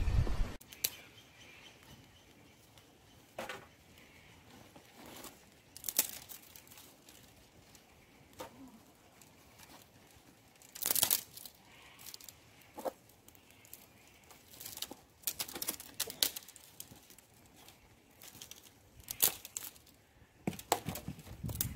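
Scattered rustling, crinkling and sharp clicks, a dozen or so at irregular intervals, the loudest about 6, 11 and 19 seconds in.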